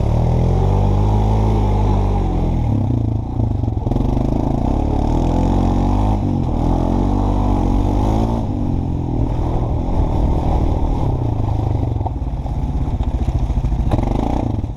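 Honda four-wheeler (ATV) engine running under load as it is ridden through mud and puddles. Its pitch rises and falls as the throttle is worked.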